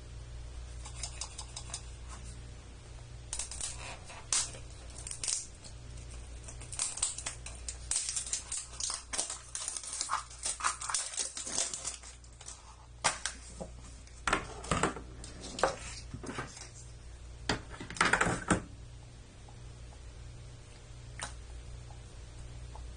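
Crinkling and crackling of plastic wrap and clicks of a plastic Fash'ems blind capsule being handled and opened, in a run of irregular snaps and rustles that stops a few seconds before the end. A steady low hum runs underneath.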